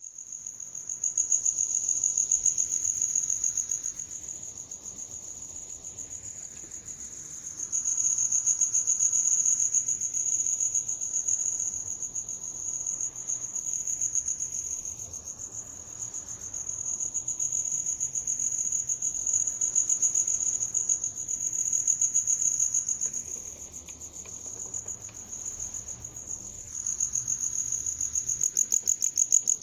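A cricket chirping in a continuous fast, high-pitched trill. Its loudness swells and fades every few seconds as the 8D processing pans it around the listener.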